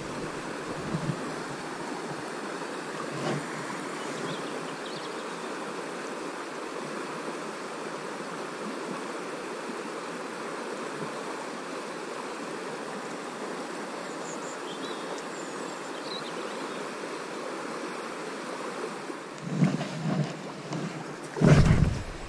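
River water rushing steadily past, a continuous even hiss. Near the end, a few loud, low bumps of buffeting on the microphone.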